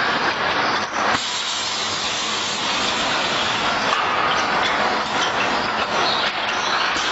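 Steady mechanical noise of a factory assembly line running, with a change in the noise about a second in.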